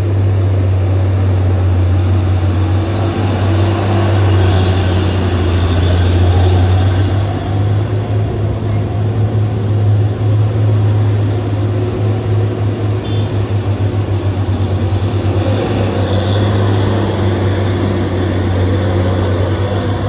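Heavy truck's diesel engine running, a loud steady low drone that turns into a rapid, regular pulsing from about eight seconds in until near the end.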